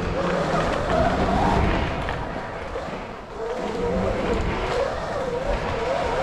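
Electric dirt bikes riding on a track: a high motor whine that rises and falls as the riders throttle on and off, over a steady rush of noise, dipping briefly about three seconds in.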